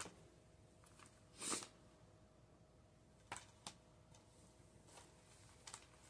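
Near silence with faint handling of thin plastic Blu-ray cases: a short soft slide about a second and a half in, then a few light clicks of plastic.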